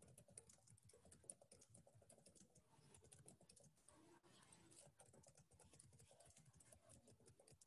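Very faint typing on a computer keyboard: a quick, uneven run of soft key clicks.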